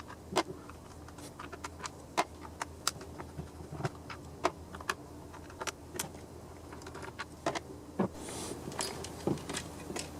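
Irregular small clicks and taps of tools and plastic parts being handled while the side plate of a Craftsman chainsaw is taken off, with a short soft hiss near the end.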